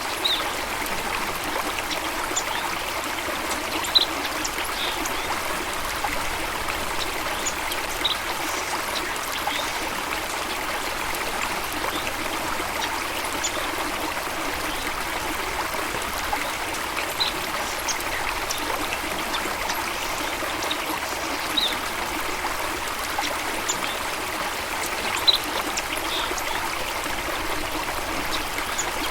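Running water of a stream or small waterfall, a steady trickling and rushing. A few brief high-pitched sounds stand out now and then.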